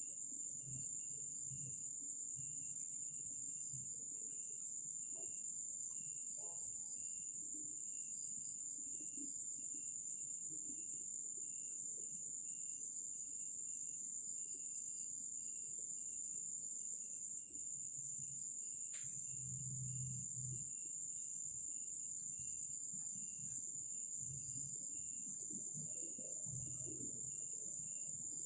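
Night insects: a steady high cricket trill, with a second cricket chirping in even pulses about one and a half times a second. Faint low sounds come and go underneath, and there is one sharp click about two-thirds of the way through.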